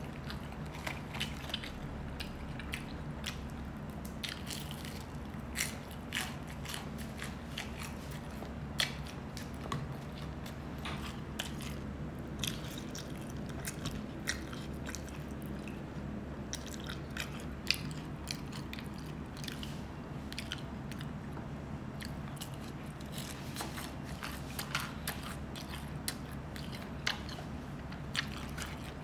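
Close-miked sounds of a person chewing and biting food, with irregular small crunchy clicks, over a steady low hum.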